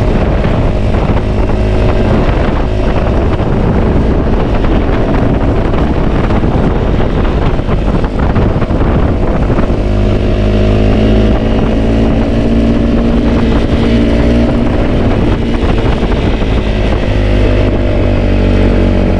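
Off-road motorcycle engine running, heard from on board the bike, its pitch rising and falling with the throttle in the second half.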